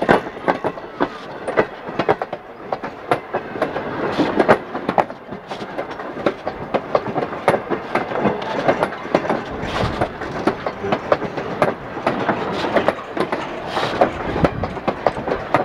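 Passenger train rolling past at close range, its wheels clattering over the rail joints in a dense run of sharp, irregular clicks over a steady rumble.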